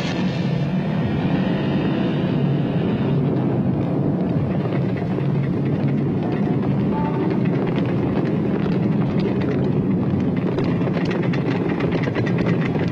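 Yamaha motorcycle engine running steadily as the bike rides along, its sound breaking into rapid, even pulses near the end.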